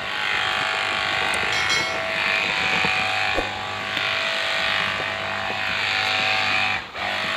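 Electric pump of a battery-powered backpack sprayer running steadily with a hum and a constant hiss, briefly dropping out near the end.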